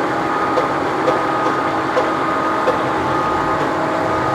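GMC GT-26120 heavy-duty gap bed engine lathe running with its carriage on rapid traverse: a steady machine hum and gear whine with light ticks about twice a second.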